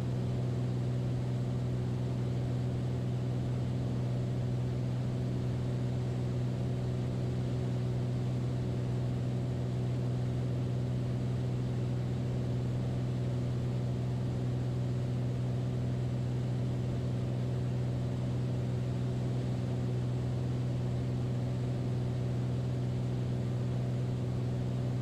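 Beechcraft Bonanza's piston engine and propeller droning steadily in the cabin: a constant low hum with no change in power.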